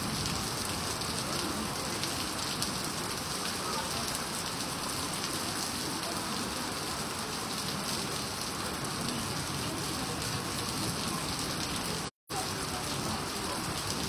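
Rain falling steadily onto a flooded street, an even hiss of drops splashing into standing water. The sound cuts out completely for a split second about twelve seconds in.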